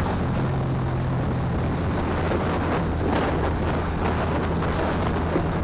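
Motorcycle engine running at a steady cruise, with wind rushing over the rider's microphone.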